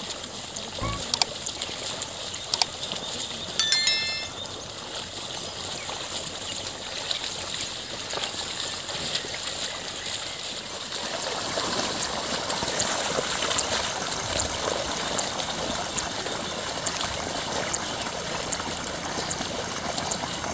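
Muddy water sloshing and splashing as a pair of bullocks tread through a flooded paddy field, dragging a mud leveller. The sound gets louder from about eleven seconds in. A brief sharp sound stands out near four seconds in.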